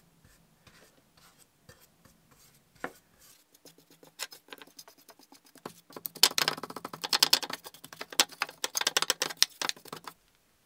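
Paintbrush scrubbing thick paint remover onto air pistol parts in a plastic tray: faint scattered taps at first, then a run of quick scratchy strokes about six seconds in that lasts a few seconds.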